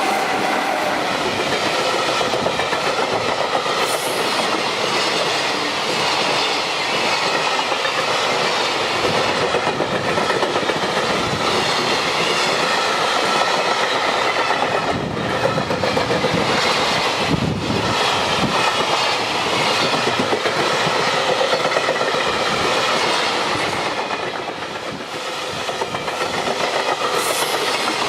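Long JR freight train's wagons rolling past, with a steady loud rumble and clatter of steel wheels on the rails.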